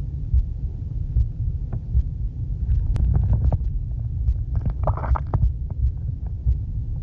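Underwater breath-hold recording: a steady low rumble with a slow heartbeat thump about every 0.8 s. Bubbles crackle from about three seconds in, with a short muffled vocal moan around five seconds.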